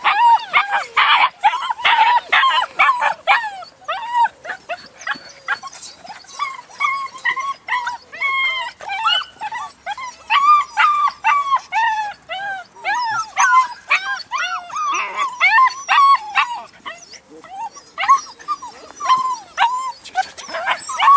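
German Shepherd puppies, about seven weeks old, yapping and whining in a near-continuous stream of short, high-pitched barks that overlap, with a brief lull near the end.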